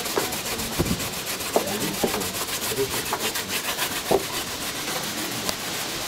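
Food being grated by hand on a metal grater: quick rasping strokes, several a second, fading in the second half.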